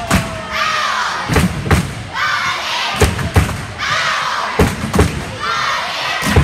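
A group of spectators chanting in rhythm in an echoing gym, a shout of many voices after every pair of heavy stomps or thumps, about every second and a half.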